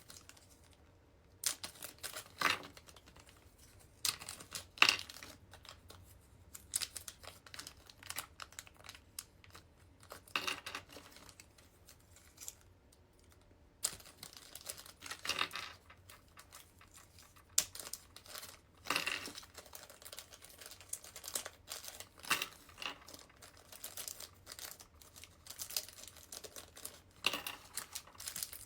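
Packaging crinkling and rustling as it is handled, with irregular sharp crackles and taps throughout and a couple of brief pauses.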